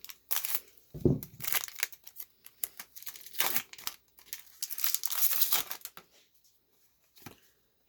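Foil Pokémon booster-pack wrapper being torn open and crinkled in irregular crackling bursts, with a soft thump about a second in; it goes quiet about six seconds in.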